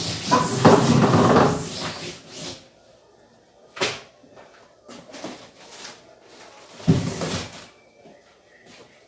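Kitchen handling noise: a loud clattering stretch at the start, then single knocks and a heavier thump, like cupboard doors and drawers being opened and shut and things set down.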